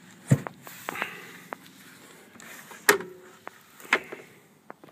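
Scattered knocks and thumps from someone moving about and handling things on a carpeted aluminum boat deck. The loudest are a dull thump about a third of a second in and a sharp knock near three seconds in, with a few lighter taps between.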